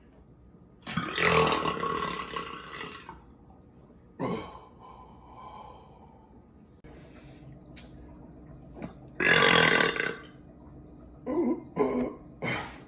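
A man burping several times after drinking an IPA beer. The first burp, about a second in, starts strong and then fizzles out over a couple of seconds. A second loud burp comes near the middle, and three short ones come near the end.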